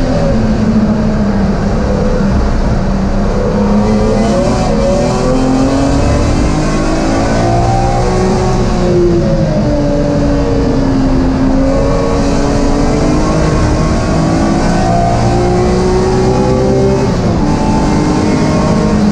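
BMW M3 race car's straight-six engine heard from inside the cabin at racing speed, its note climbing under throttle and dropping away under braking and gear changes several times, over a constant rumble of road and drivetrain noise.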